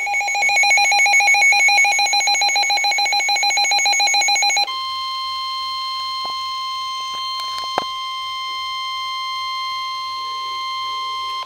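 Weather radio alert: a rapid pulsing electronic alarm tone for about four and a half seconds, then a steady single-pitch tone near 1050 Hz, the NOAA Weather Radio warning alarm tone that comes before a severe thunderstorm warning. The steady tone stops abruptly at the end.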